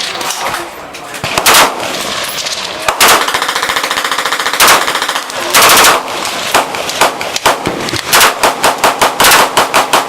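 Guns firing at a shooting range. A few single loud shots and a long rattling burst of rapid fire come in the first half, then a fast string of shots at about three or four a second.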